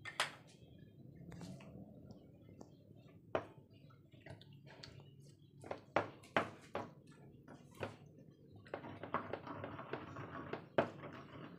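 Stone pestle working wet pineapple sambal in a granite mortar: scattered sharp knocks of stone on stone, then, about three-quarters of the way in, a steadier run of grinding and mashing.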